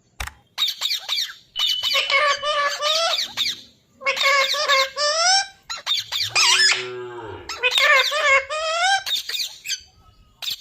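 A parrot calling in a string of short, high calls that waver up and down in pitch. About six seconds in comes a lower call that falls in pitch.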